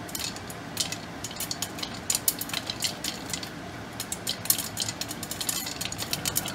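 Popcorn kernels popping in a pot covered by a glass lid: quick sharp pops, a few at first and then coming thick and fast from about two seconds in, over a steady hiss.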